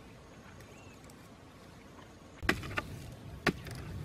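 A long stick jabbing into hard, dry ground as a man digs, giving a few sharp strikes in the second half, two close together then another about a second later, after faint outdoor background.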